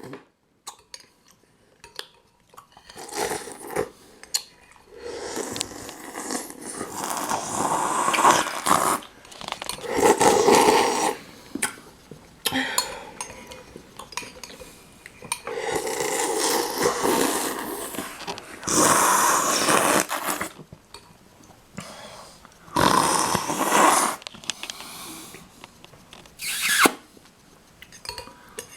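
Repeated loud slurping of chicken noodle soup, a series of separate slurps lasting one to three seconds each, with short pauses between them.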